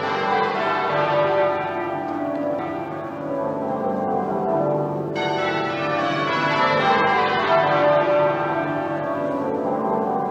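Church bells ringing, several bells sounding together in a continuous peal.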